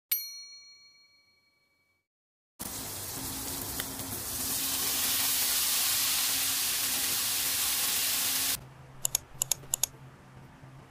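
A single chime rings out and fades at the start. After a short silence, broccoli florets sizzle loudly as they stir-fry in a hot pan with sauce, growing louder partway through and then cutting off suddenly, followed by a quick run of about six faint clicks.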